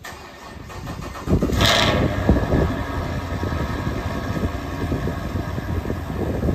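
Cold start of a 2018 Chevrolet Camaro SS's 6.2-litre V8: the starter cranks for about a second, the engine catches with a loud brief flare of revs, then settles into a steady idle through the dual exhaust.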